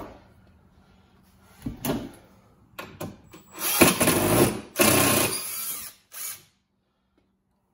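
A compressed-air blow gun hisses in about five short bursts, the longest about a second, into a brake caliper's fluid port to try to push out a seized piston.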